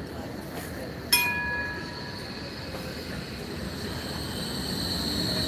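Rail vehicle running with a steady low rumble. A single bell ring comes about a second in and fades within a second, then a high steady wheel squeal grows louder toward the end.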